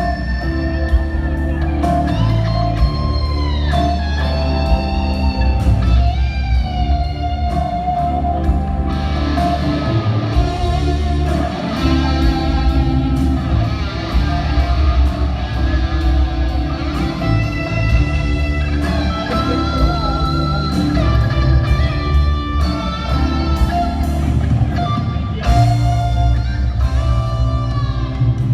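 Rock music with electric guitar lead lines over bass and drums.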